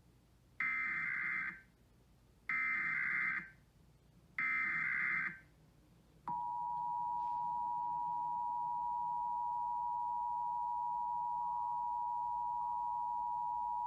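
Emergency Alert System SAME header: three one-second bursts of buzzing digital data tones, about two seconds apart. About six seconds in, the EAS two-tone attention signal begins: two steady tones sounding together, loud and unbroken.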